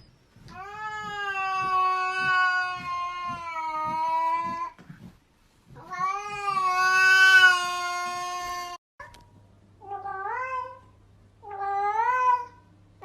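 Domestic cats yowling: two long, drawn-out, steady wails of a few seconds each, followed by two shorter meows that rise and fall in pitch.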